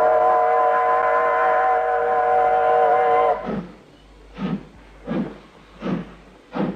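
Steam locomotive whistle blowing a steady several-note chord for about three seconds, then cutting off suddenly. The engine then starts chuffing, with evenly spaced exhaust beats about one every 0.7 s.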